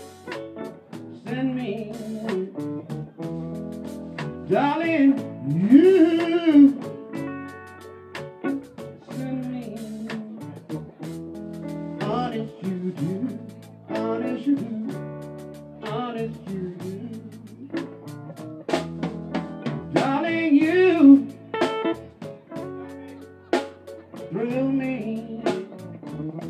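Live blues band playing: electric guitar, bass guitar and drum kit, with sung phrases that come and go every few seconds.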